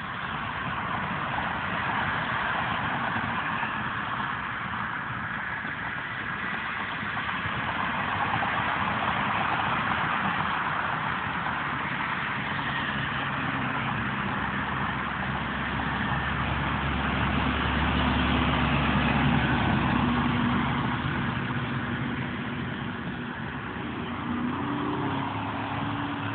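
Road traffic passing on wet pavement: a steady hiss of tyres on the wet road with engine noise underneath. A heavier engine's low rumble swells about two-thirds of the way through, then eases.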